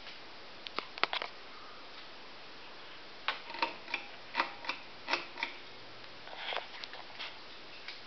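SMC Park Avenue III ceiling fan starting up: a few sharp clicks about a second in, then from about three seconds an irregular run of light, ringing metallic ticks, several a second, as the blades come up to speed.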